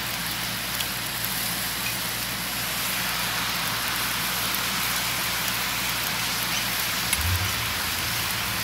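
Noodles and soy–teriyaki sauce sizzling on a hot Blackstone flat-top griddle: a steady hiss as the poured sauce hits the hot steel.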